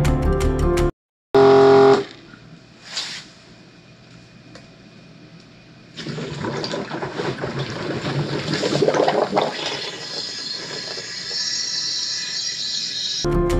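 Background music for about the first second. Then quiet room noise until about six seconds in, when a rushing, gurgling flow with a hiss starts and keeps going: washer fluid and air being let out through a valve on a homemade PVC tire-fill manifold to vent pressure from a tractor tire being filled with fluid ballast.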